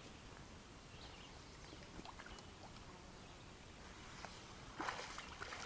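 Small wind-driven waves lapping and sloshing at the water's edge, with a louder slosh about five seconds in.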